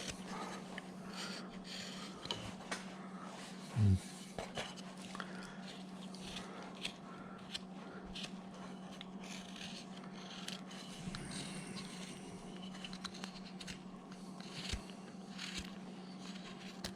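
Hand carving blade shaving light cuts across a wood carving to take off pencil marks: a run of short, irregular scraping strokes over a steady low hum, with one brief low bump about four seconds in.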